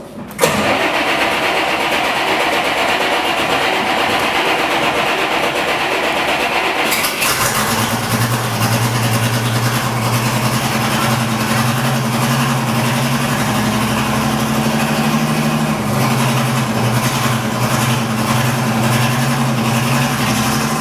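Small locomotive's engine being started: a loud noisy cranking sound for about seven seconds, then the engine catches and runs with a steady hum, rising a little in pitch for a few seconds midway before settling back.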